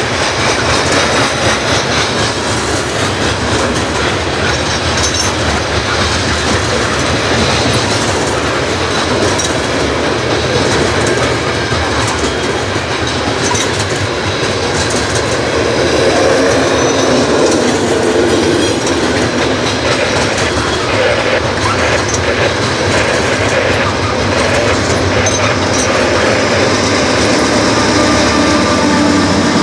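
CSX freight train cars rolling past with a steady clatter of wheels over the rail joints.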